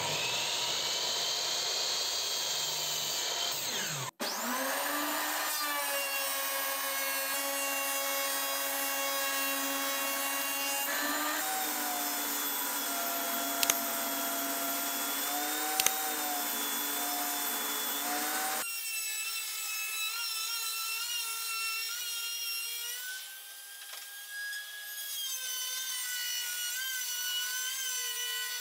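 Woodworking power tools cutting pine boards, in short clips cut together. A miter saw spins up with a rising whine and runs, then a table saw runs steadily through a rip cut with two sharp clicks partway through. Near the end a trim router runs with a wavering whine.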